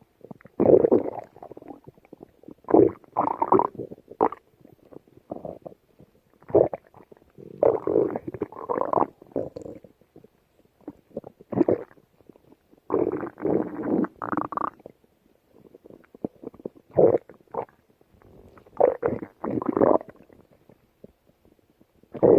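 Stomach growling: a string of irregular gurgling rumbles, some short, some lasting about a second, with brief quiet gaps between them.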